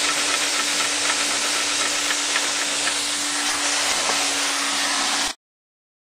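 Vacuum-driven Lego Technic piston engine running, a steady hissing rush of air with a steady low hum and faint clicks from the mechanism. It cuts off suddenly about five seconds in.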